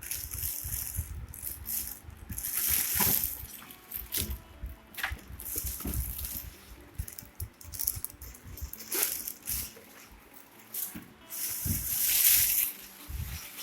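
Packaging being handled during unboxing: plastic wrapping rustling and crinkling in irregular bursts, with short knocks and rattles of the contents.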